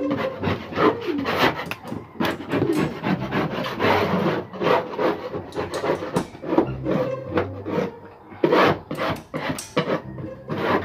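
Thick pigeon droppings being scraped off the floor of a pigeon loft, in many quick scraping strokes of uneven pace.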